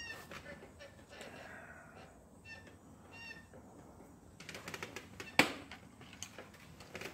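Handling noise on a phone's microphone: rubbing and knocks, with one sharp click about five and a half seconds in. A few short, high squeaky chirps sound at the very start and again around two and a half and three seconds in.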